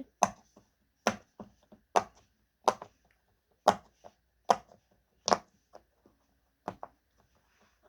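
Bubbles of a firm silicone pop-it fidget toy pressed one at a time, a sharp pop roughly every second, about eight in all.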